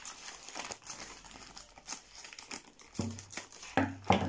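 Plastic courier mailer bag crinkling as it is handled, with a few louder knocks near the end.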